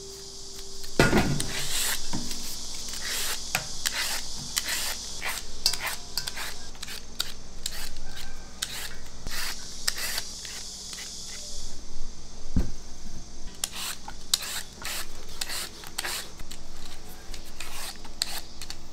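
Kitchen food preparation: irregular rubbing and scraping strokes with light clinks of dishes or utensils, over a steady hiss that stops about two thirds of the way through.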